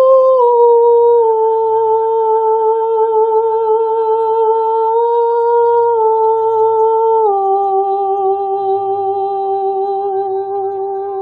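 A woman's voice humming or singing one long, pure held tone with slight vibrato, stepping down in pitch a few times, most markedly about seven seconds in, over faint higher sustained tones.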